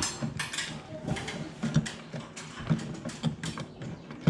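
Irregular scraping, rustling and light knocks from a hand and arm groping inside a ceiling cavity through a recessed-light hole in drywall, with the loose wires brushing against it.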